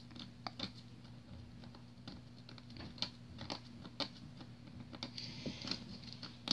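Fingernail scratching at a scratch-off spot on a printed paper map: faint, irregular little scratches and taps, turning into a steadier rasp from about five seconds in.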